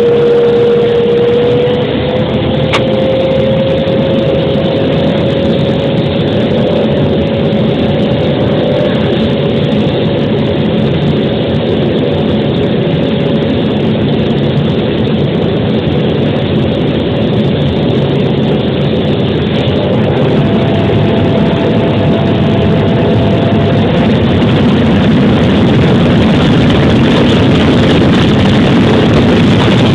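Cessna 208B Caravan's turboprop engine and propeller running loud and steady, with a steady tone that rises slightly in pitch about two seconds in.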